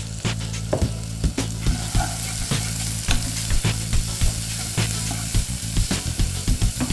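Finely chopped onions sizzling in hot oil in a heavy-bottomed pan while a wooden spatula stirs and scrapes them, with frequent short knocks of the spatula against the pan. A steady low hum runs underneath.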